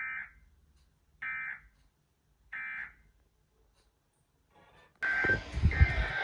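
Three short bursts of EAS digital data, each about half a second long and about a second and a quarter apart, the end-of-message code that closes an emergency alert. About five seconds in, loud radio static hiss starts, with a steady data tone over it.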